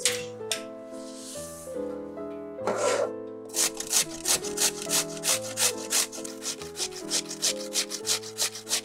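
Raw potato scraped on a stainless steel cone grater in quick strokes, about four a second, starting a few seconds in; a short peeler scrape on the potato near the start. Background music with sustained chords plays throughout.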